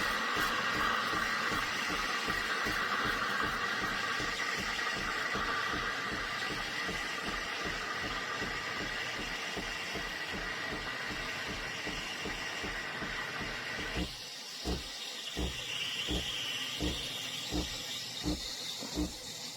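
Espresso machine hissing steam over a steady rhythmic pump pulse. About 14 seconds in the strong hiss drops away, leaving the pump pulsing evenly, about once every 0.7 s, with a soft hiss.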